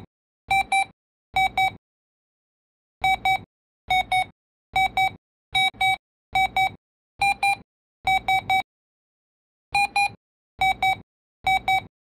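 Electronic beeper sounding short double beeps on a single shrill square-wave tone, repeating about every 0.8 seconds, with a pause about two seconds in and another near nine seconds.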